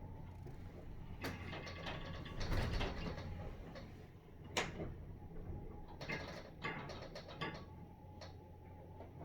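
Loud, irregular creaking in a high-rise building: a run of drawn-out creaks about a second in, a sharp crack midway, and another cluster of creaks and ticks later, over a low steady hum.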